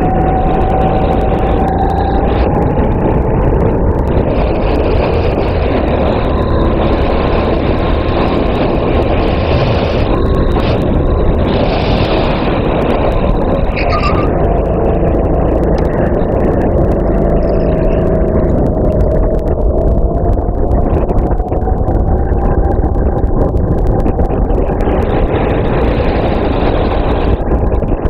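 Racing kart engine running hard, heard from onboard. Its pitch drifts up and down as the revs change through the lap, with rushing wind-like noise over it.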